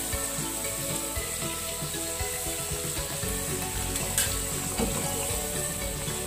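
Potato slices deep-frying in hot oil with a steady sizzle. A metal spatula clinks against a slotted metal skimmer about four seconds in as the slices are lifted out to drain.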